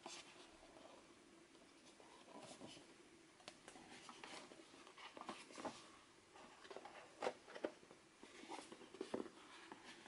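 Quiet handling of a cardboard Fitbit box with a plastic insert, being closed: soft scratching and rubbing, with a few sharper small taps and clicks in the second half.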